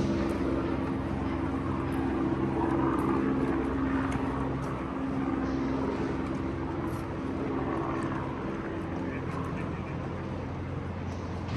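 A steady low engine drone with several pitched tones, over city background noise; the drone weakens after about eight seconds.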